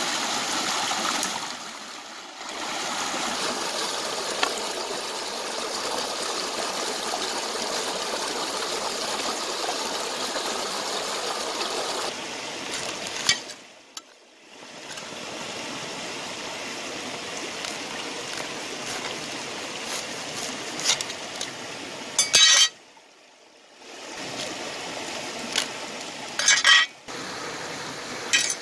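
Stream water rushing steadily over rocks, then a softer running flow about halfway through, cutting out briefly twice. Over the softer flow come a few sharp clicks and clinks.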